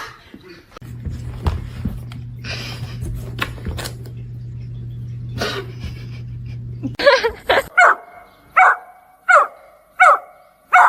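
A steady low hum with a few clicks, then, about seven seconds in, a dog starts barking repeatedly: a run of short barks, about one or two a second.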